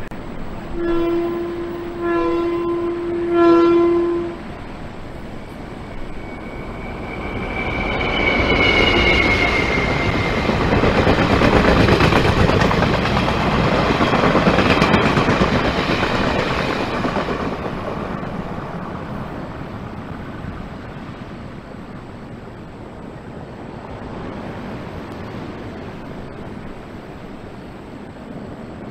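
A Taiwan Railway passenger train sounds its horn in three short blasts, then passes. There is a brief high falling squeal, then the rolling noise of the wheels on the rails builds, peaks as the cars go by and slowly fades.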